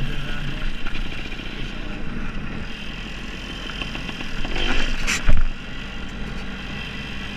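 Dirt bike engine running steadily while riding a dirt track, with a sharp, loud thump about five seconds in.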